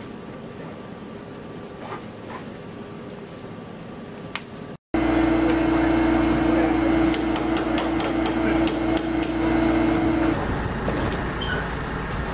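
Faint room tone with a few light clicks; about five seconds in it switches to a loud, steady machine hum, over which comes a run of sharp taps from tool work on metal. The hum stops about two seconds before the end.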